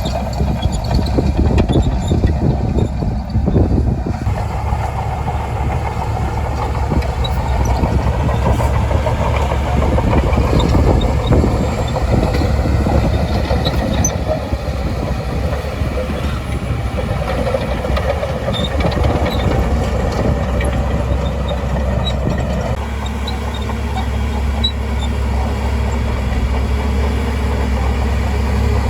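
Shantui DH17C2 bulldozer's diesel engine running steadily under load, easing off a little about three-quarters of the way through.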